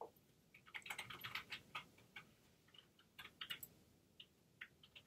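Near silence broken by faint, light clicks and taps in loose flurries, one about a second in and another around three seconds in, with a few single ticks near the end.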